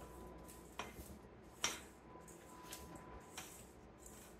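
A spatula stirring a damp oat-and-butter crumble mixture in a stainless steel bowl, with a few light clinks and scrapes against the metal, the sharpest about one and a half seconds in.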